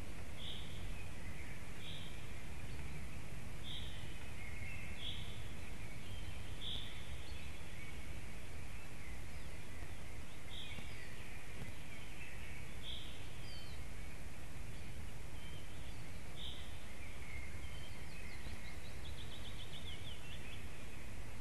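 A small forest bird repeating a short, high call every second or two, the calls thinning out partway through, then a quick trill of rapid notes near the end, over a steady low background rumble.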